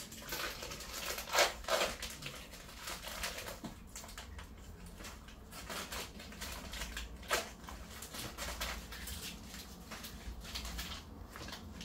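Crinkling handling noise broken by sharp clicks, the loudest about a second and a half in, again just before two seconds, and once past seven seconds.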